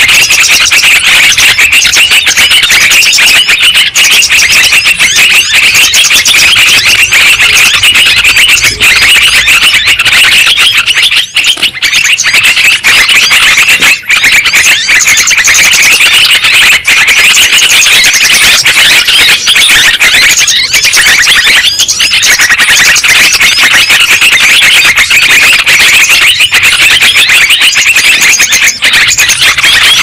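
Dense, unbroken chattering calls of many yellow-vented bulbuls (trucukan), played loud as a bird-trapping lure recording meant to draw wild birds down.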